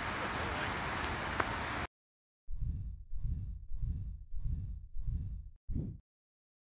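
A steady outdoor background rush with one faint click cuts off abruptly about two seconds in. After a short silence comes an animated-logo sound effect: five evenly spaced, low, whooshing pulses, then one short final pulse, ending in silence.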